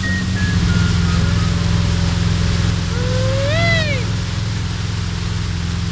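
Motorboat engine running with a steady low drone under the hiss and rush of its churning wake. About three and a half seconds in, a voice calls out once, rising then falling in pitch.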